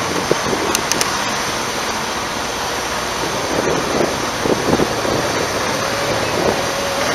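Motorcycle riding over a cobblestone street: steady engine and road noise, with a few knocks about four and a half seconds in.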